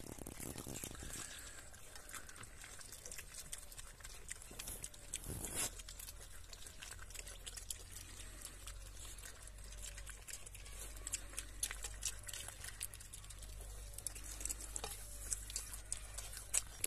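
Two Kune Kune piglets eating from a food bowl: close-up chewing and slurping of wet food, a steady run of small wet clicks.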